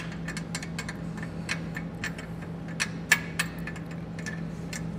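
Irregular light metallic clicks and taps of a bolt and spacer block being handled and fitted inside a steel vehicle frame rail, with one sharper tap a little after three seconds in.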